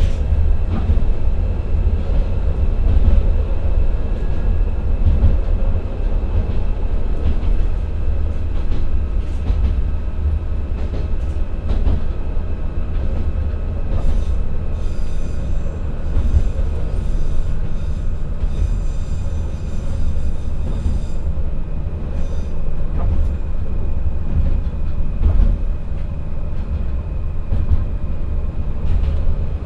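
Running sound inside a Nissan Diesel PE6HT03-engined railcar (Akechi 10) travelling at about 37 km/h: a steady low rumble of engine and wheels on the rails. About halfway through, a stretch of higher-pitched wheel-on-rail noise comes in for several seconds.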